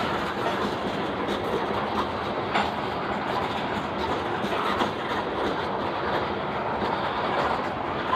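CSX covered hopper cars of a grain train rolling past at close range: a steady rumble of steel wheels on rail, with a few sharp clicks as wheels cross rail joints.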